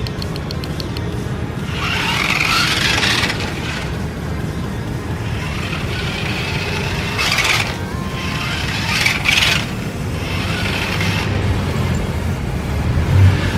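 Toy RC car's small electric drive motors and wheels running in short bursts as it is driven, each burst a brief rising whir.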